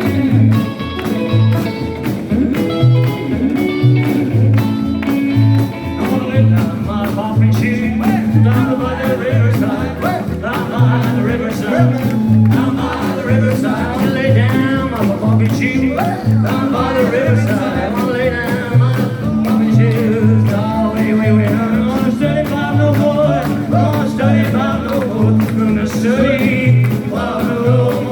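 Live rockabilly band playing an instrumental break: a lead instrument solos over a steady bass line and drums.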